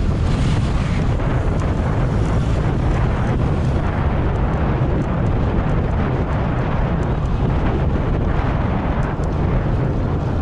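Wind buffeting the microphone of a camera on a racing bicycle moving at speed: a steady, heavy rushing noise, with a few faint ticks in the second half.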